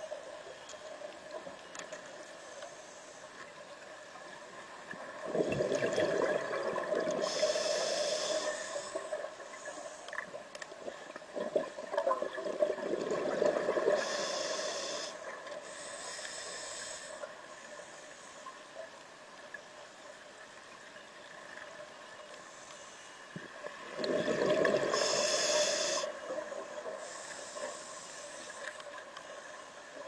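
A scuba diver's regulator breathing underwater: three long exhalations of bubbles rushing out, about five, eleven and twenty-four seconds in, each joined by a hiss from the regulator, over a faint steady hum.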